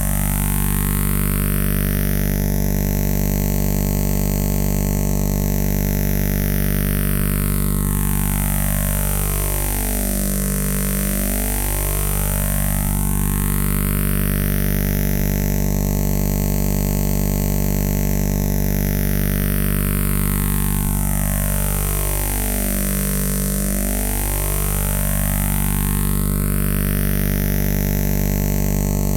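Synthesized electrical hum imitating a power line: a steady, loud low buzz with many overtones. Its tone colour slowly sweeps up and down, cycling about every twelve seconds.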